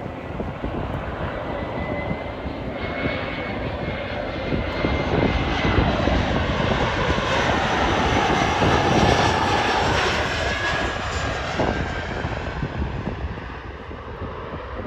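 Embraer E175 jet airliner's twin General Electric CF34 turbofans on final approach, growing louder as it passes close by, loudest a little past the middle, then fading. A whining tone rides over the roar and slides lower in pitch as the plane goes past.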